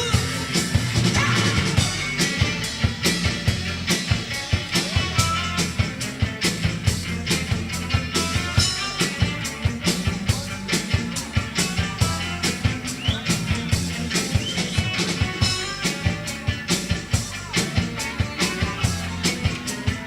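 Live rock band playing an instrumental passage: drum kit keeping a steady fast beat with electric guitar and bass, no vocals.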